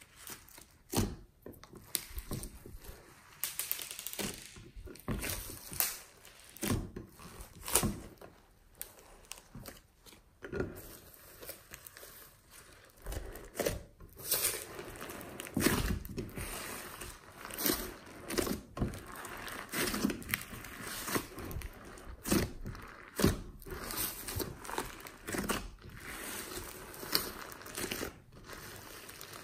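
Hands folding and squeezing glossy slime mixed with foam beads. It gives irregular squelches, with sharp clicks and pops as air pockets burst and beads are pressed.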